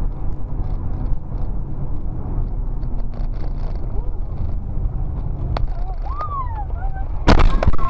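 Steady road and engine rumble inside a moving car's cabin, then a sudden loud crash about seven seconds in as cars collide just ahead.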